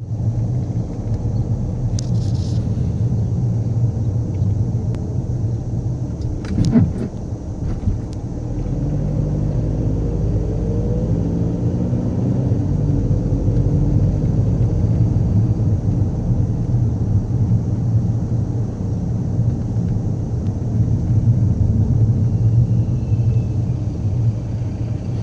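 Skoda Superb driving with a steady low rumble, broken by a few short knocks, the loudest about seven seconds in: the noise the car makes going over speed bumps.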